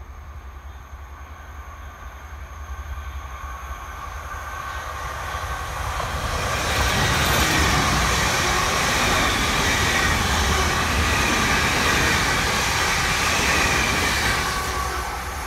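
Passenger multiple-unit train approaching and passing close by, growing louder over the first several seconds, staying at its loudest with a steady whine as the carriages go past, then dying away near the end.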